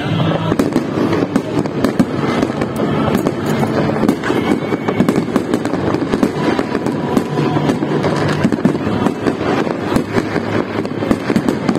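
Fireworks display in full flow: a dense, unbroken run of bangs and crackling as aerial shells and crackling stars burst overhead.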